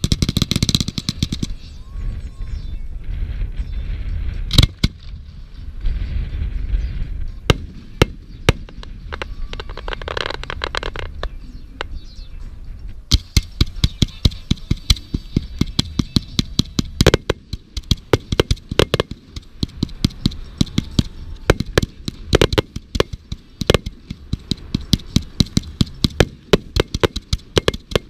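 Fireworks going off: a burst with crackling at the start, low rumbling booms and scattered sharp bangs, then from about halfway a rapid, unbroken barrage of cracks.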